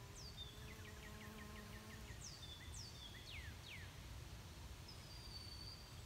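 Faint outdoor birdsong over a low steady rumble. It has several high whistled notes sweeping downward, a quick trill of about seven notes a second, and a held high whistle near the end.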